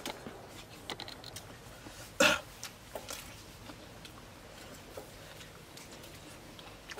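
Quiet eating sounds, with small scattered clicks and rustles of hands handling food, and one short cough-like vocal burst from a person about two seconds in, the loudest thing heard.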